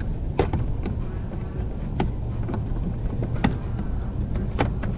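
Plastic steering-column cover being fitted back on, giving four sharp clicks and knocks a second or so apart over a steady low rumble.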